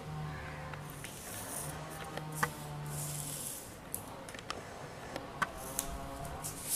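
Pencil scratching along a plastic ruler on sheets of paper, in short hissy strokes, with scattered light clicks and taps from the ruler and paper being handled.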